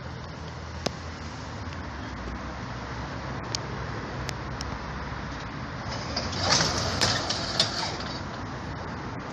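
Steady distant low rumble, slowly growing louder, with a few sharp clicks and a short crackling rustle about two-thirds of the way through.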